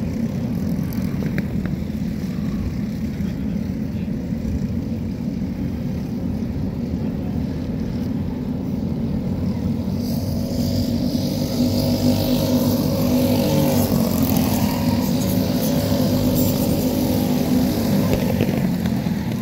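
Karts with Briggs & Stratton LO206 four-stroke single-cylinder engines running on track. Their engines come in about halfway through and grow louder as the pack goes by, over a steady low rumble.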